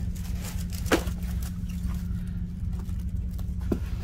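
A plastic-covered diamond painting canvas rustling and crinkling as it is handled and laid out on a wooden table, with a sharp tap about a second in and a smaller one near the end. A steady low hum runs underneath.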